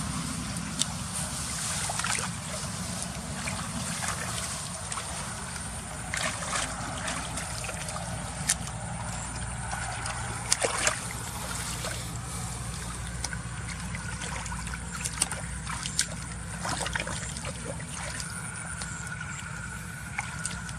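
Water splashing and trickling, with scattered short splashes and knocks over a steady low rumble.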